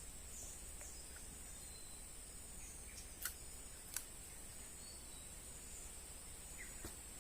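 Insects buzzing steadily at a high pitch, with a few faint bird chirps. Two sharp clicks come about three and four seconds in.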